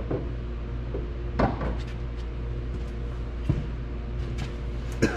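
A few scattered clicks and knocks of tools and parts being handled under a car, about three in all, over a steady low hum.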